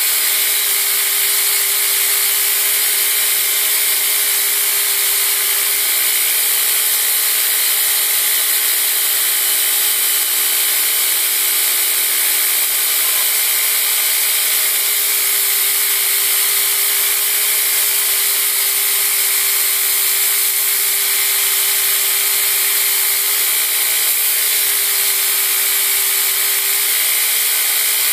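Belt grinder running steadily while a steel push-dagger blade, clamped in a bevel jig, is ground against the belt: a continuous hissing rasp of steel on the abrasive belt over a steady motor and belt whine.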